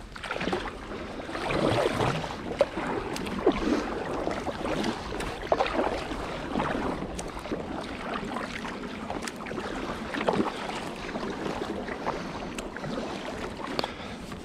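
Water splashing and sloshing around a small boat on a river, with scattered knocks and clicks and a louder surge about two seconds in.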